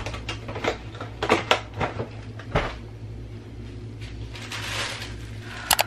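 Household items being handled in a kitchen: a run of knocks and clicks as boxes and packets are moved about, a plastic bag rustling about four to five seconds in, and two sharp clacks near the end.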